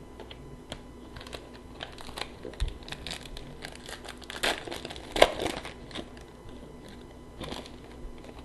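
Hockey card pack wrapper crinkling and tearing open, with cards being handled; the loudest crackles come about four and a half and five seconds in.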